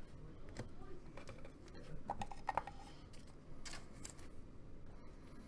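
Donruss Optic football trading cards being flipped through and handled by hand: faint, scattered small clicks and slides of stiff glossy card stock.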